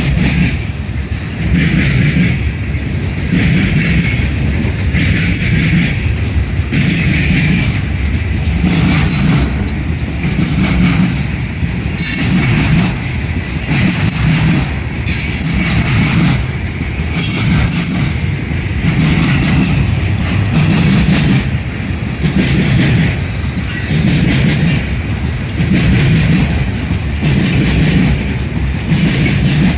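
Cars of a CN Herzog work train rolling over a rail diamond crossing, their wheels clattering in a steady rhythm about every second and a third, with some faint wheel squeal.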